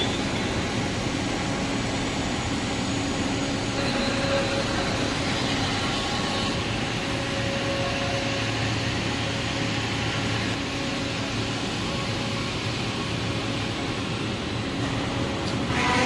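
Steady machine noise of a running glass tempering furnace line: an even noise with a few held hum tones underneath.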